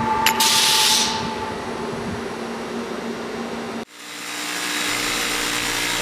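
Abrasive waterjet cutting a metal plate, a steady machine noise with a loud high hiss about a second long near the start. After an abrupt cut, a bench grinder runs with a steady hum.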